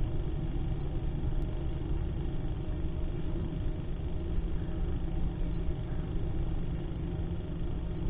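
Steady low outdoor rumble of background noise, with no distinct calls standing out.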